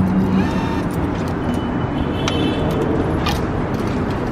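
Steady city street traffic noise, with a few faint clicks on top.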